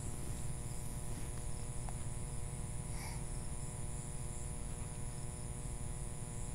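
A steady, high insect chorus over a low, steady rumble, with one faint, brief sound about three seconds in.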